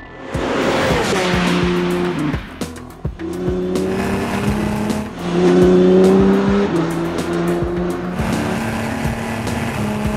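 A race car sweeps past with a sudden whoosh at the start, then its engine note holds and steps up and down in pitch, loudest about six seconds in. Electronic music plays underneath.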